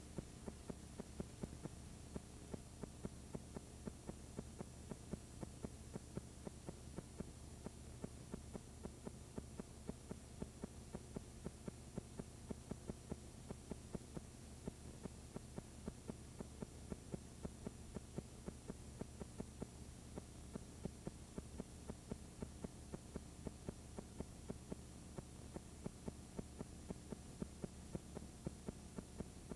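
Faint, steady low electrical hum with soft ticks a few times a second: the audio of a blank stretch of videotape playing over video snow.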